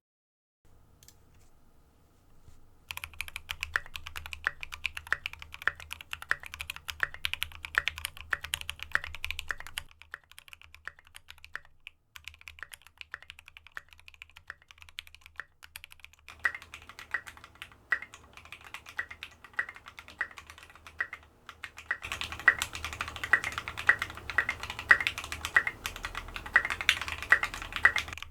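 Fast typing on a custom F1-8X mechanical keyboard with SA-profile keycaps, a quick run of key clicks. It starts about three seconds in, thins out midway, and picks up again with louder strokes near the end.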